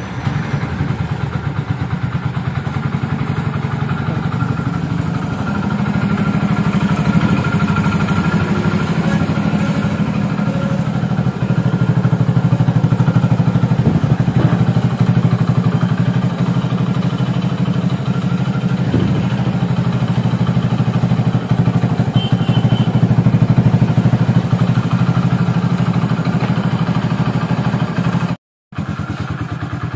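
Hero Splendor motorcycle's single-cylinder four-stroke engine running steadily, with an even, rapid firing beat. A brief gap of silence comes near the end.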